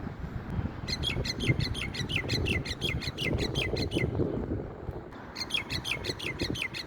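Myna giving two bursts of rapid chattering, about ten short falling notes a second: the first starts about a second in and runs for some three seconds, the second starts near the end. A low wind rumble on the microphone runs underneath.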